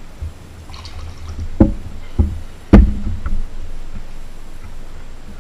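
Milk poured from a carton into a mug, followed by three thuds of cups or the carton set down on a table, the third the loudest.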